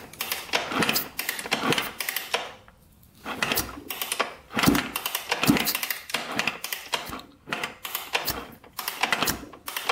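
1996 Suzuki RM125 two-stroke engine with its cylinder head off, turned over by hand so the piston rises and falls in the bore, giving runs of rapid mechanical clicks and rattles. There is a brief lull about two and a half seconds in.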